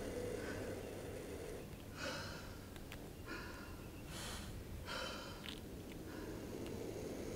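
Several raspy, breath-like bursts over a steady low rumble, coming about once a second through the middle.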